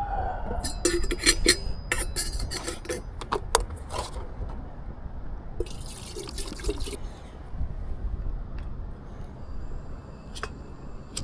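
Liquid being poured into a container, with clinks and knocks of cups or pots and a short hissing pour about six seconds in.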